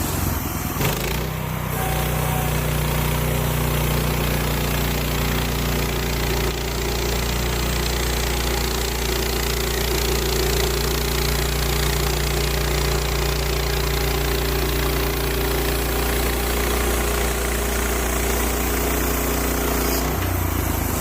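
Woodland Mills HM130 bandsaw sawmill running steadily, its gas engine driving the band blade at a constant speed.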